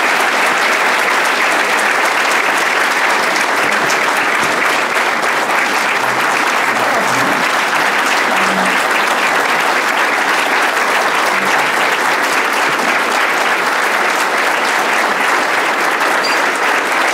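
A large audience applauding, steady and sustained clapping at an even level.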